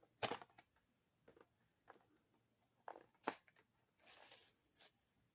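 Packaging being handled and opened: a string of sharp plastic clicks and taps, loudest just after the start and a little after three seconds in, with a short crinkling rustle about four seconds in.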